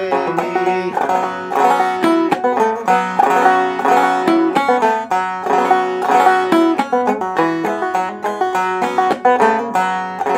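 Five-string banjo played solo in clawhammer style: a quick, steady run of plucked and brushed notes, with the last chord left ringing at the very end.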